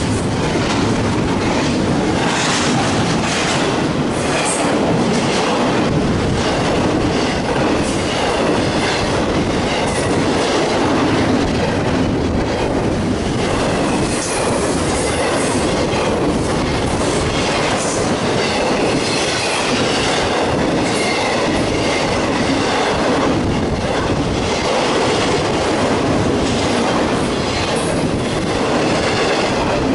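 CSX intermodal freight train's flatcars, loaded with trailers and containers, rolling past at close range: a steady, loud noise of steel wheels on rail.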